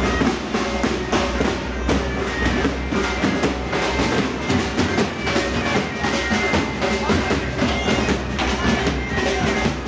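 Pipe band playing: bagpipes sounding steady sustained notes over regular beats of large bass drums.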